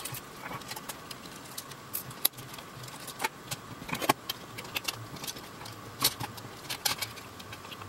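Irregular sharp clicks and taps of small plastic parts as the tracked undercarriage of a Mofun 1026 (Bocheng BC1026) 1:24 RC excavator toy is handled and pulled apart by hand.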